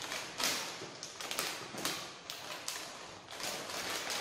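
Crinkling of a plastic snack bag being handled, in short, irregular rustles.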